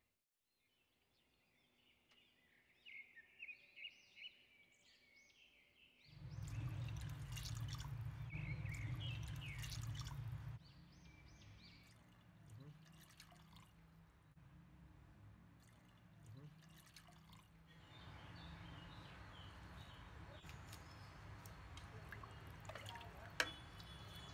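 Water poured from a jug into a pressure cooker of curry, splashing loudest for a few seconds partway through, then quieter, with scattered light clinks. Faint bird chirps come before the pouring.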